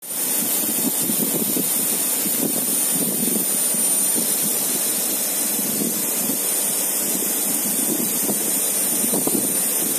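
Steady rushing machinery noise from a spiral pipe welding line, with a thin high whine running alongside it.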